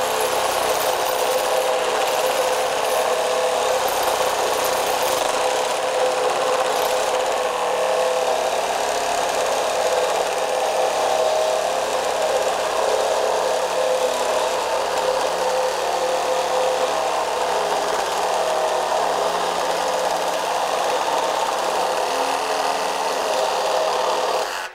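Metabo HPT CR18DAQ4 18V cordless one-handed reciprocating saw with a half-inch stroke and an aggressive blade cutting through a wooden board. It runs steadily and stops abruptly at the very end as the cut finishes.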